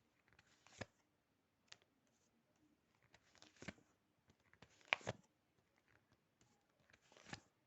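Tarot cards being handled and laid down on a table: a few scattered soft taps and clicks, the sharpest about five seconds in.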